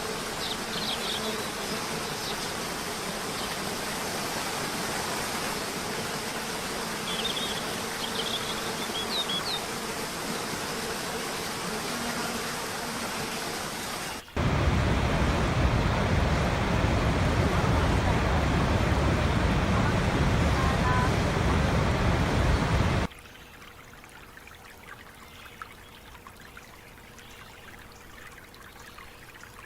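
Running water in three abruptly cut segments: a steady rushing hiss with a few short high chirps, then about halfway through a louder, deeper rush like a waterfall, then for the last few seconds a much quieter flow.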